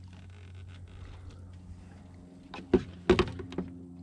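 Steady low hum with a few sharp knocks on a boat, the loudest about three seconds in.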